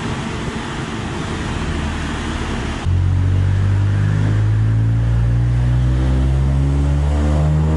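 Toyota GR Yaris's turbocharged 1.6-litre three-cylinder on a chassis dyno, breathing through a Mongoose GPF replacement and GPF-back exhaust. It starts as a steady rushing noise. About three seconds in the car comes on throttle for a dyno pull: the deep exhaust note suddenly gets louder and climbs slowly in pitch as revs build.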